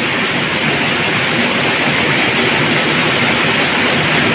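Steady rushing of river water, an even hiss that holds at the same level throughout.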